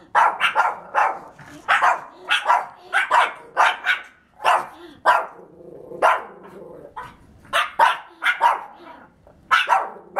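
Small dog barking again and again in short, sharp, irregular barks, several in quick pairs: alert barking at a cat outside the window.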